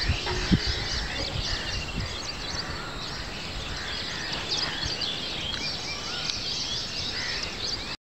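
Many small birds chirping at once: a dense chorus of short, high, twittering calls over a low background rumble, with one dull knock about half a second in.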